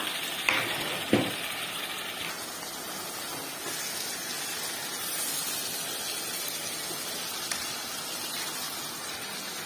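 Chopped tomatoes and onions sizzling in a saucepan as a wooden spatula stirs them. The spatula knocks twice against the pan, about half a second and a second in.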